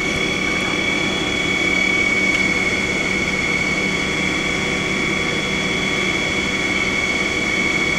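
Haas SL-40 long-bed CNC lathe with its 55 hp Vector dual-drive spindle running its 18-inch chuck steadily at about 750 rpm in high range, a constant high whine over a low hum.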